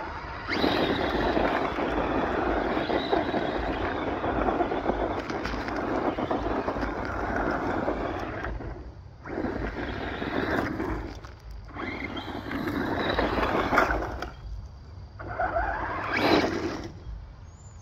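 Battery-powered Traxxas Rustler RC truck spinning its tyres on loose gravel, spraying and scraping stones: a long spell of about eight seconds, then three shorter bursts with pauses between them.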